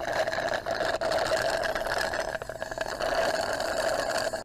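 Iced drink sucked through a plastic straw, a steady crackling slurp that stops abruptly near the end.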